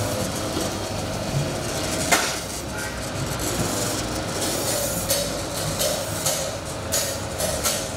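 Automatic kerupuk slicing machine running, slicing cracker dough logs: a steady motor hum under a rattling clatter, with a sharp click about two seconds in and a quick run of clicks in the second half.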